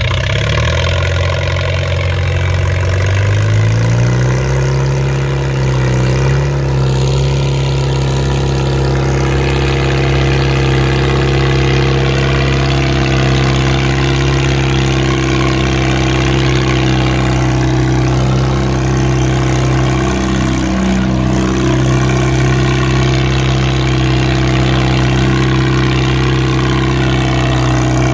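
Farmall tractor's four-cylinder engine pulling a weight-transfer sled: it speeds up over the first few seconds, then holds a steady high speed under load, with a brief waver about two-thirds of the way through.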